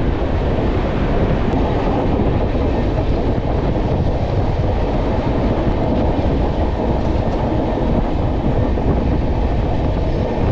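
Chennai–Bangalore AC Double Decker Express rolling out of a station, heard at an open coach door: a steady running noise of wheels on track.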